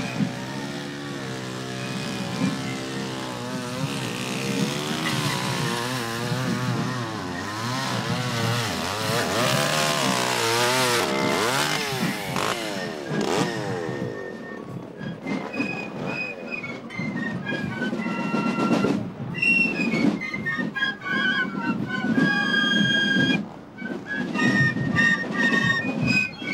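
A low drone that wavers up and down in pitch, then, from about halfway, Basel Fasnacht piccolos playing a march melody over snare drumming.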